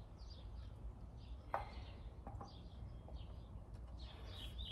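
Faint, scattered bird chirps over a steady low hum, with one light tap about a second and a half in.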